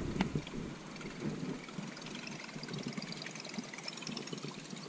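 Baitcasting reel being cranked on a topwater retrieve, a faint quick ticking that sets in about halfway through, over a low rustling of wind and handling on the microphone.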